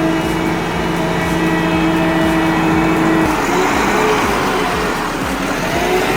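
A heavy vehicle's engine running hard under load, holding a steady pitch at first. About three seconds in, the pitch starts wavering up and down.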